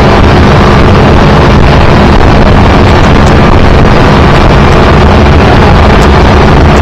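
Motorboat running at speed while towing a tube: a steady low engine hum under heavy wind buffeting on the microphone and the rush of water from the wake.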